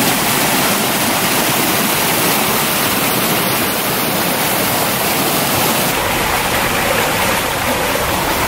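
Water from a small garden stream tumbling over rocks in a little cascade, a steady rushing splash.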